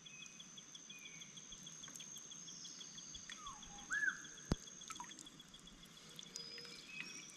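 Gill net being hauled by hand into a wooden canoe, with light dripping of water off the mesh, under a steady high-pitched pulsing trill. A short gliding call comes about four seconds in, followed by a single sharp knock.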